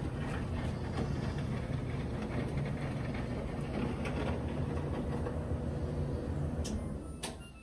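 A GE GFD55ESSNWW dryer running empty: a steady rumbling whir from the tumbling drum and exhaust blower. Near the end it cuts off with a click and the noise falls away quickly; the cycle has ended early, which the owner puts down to a button pressed by accident.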